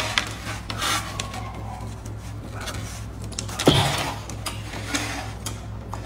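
Close-up chewing and biting on a whole chili-coated cooked octopus: wet mouth clicks and smacks, with one louder wet bite a little past halfway, over a low steady hum.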